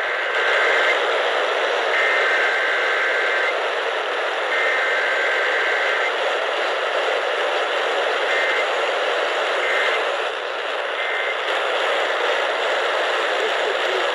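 Emergency Alert System weekly test data bursts received over the radio through a heavy static hiss: three warbling digital header bursts about a second and a half long, then three short end-of-message blips.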